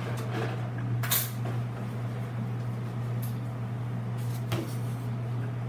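Cardboard card-deck box handled in the hands: a few short scrapes and taps, the loudest about a second in and again about four and a half seconds in, over a steady low hum.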